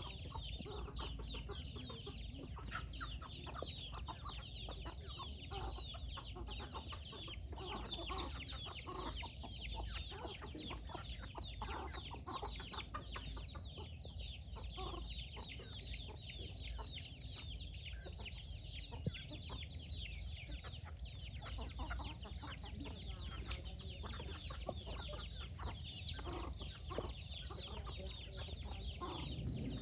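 A flock of chickens: chicks peeping in a continuous stream of short, high, falling calls, with hens clucking lower among them. A steady low rumble runs underneath.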